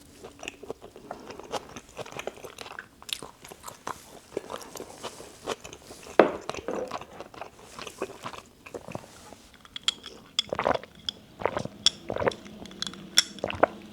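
Close-miked chewing and biting of spicy dakgalbi (stir-fried chicken) with rice: irregular crunchy, wet mouth sounds.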